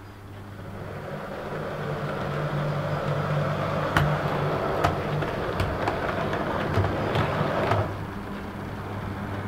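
OO gauge Class 143 Pacer model running over the pointwork: a steady motor hum that grows louder as the train comes closer, then drops about eight seconds in. Several sharp clicks come from the four-wheeled coaches crossing the double slip and points.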